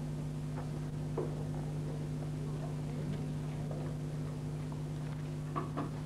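A steady low electrical hum from the old broadcast tape, with faint, short scattered noises from the hushed snooker arena while a player settles over a shot without striking it.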